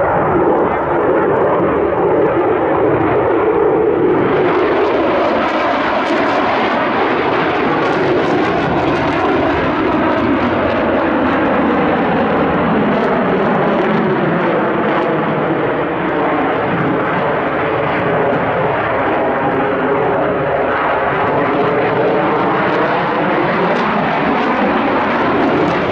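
Twin-engine Sukhoi Flanker-family fighter jet flying a display: steady, loud jet engine noise with a slowly sweeping, phasing tone as the aircraft moves, turning harsher about four seconds in.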